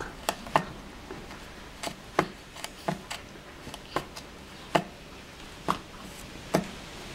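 Plastic baby spoon clicking and tapping against a plastic feeding bowl: about a dozen sharp, irregular taps.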